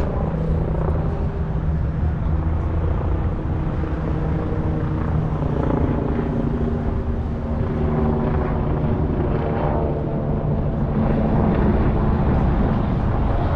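A steady low engine drone with a few held humming tones, running unbroken.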